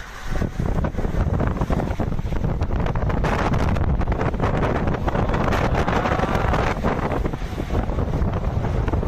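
Strong storm wind from a tornado blowing hard across the microphone: a loud, continuous rush with heavy low buffeting and crackle.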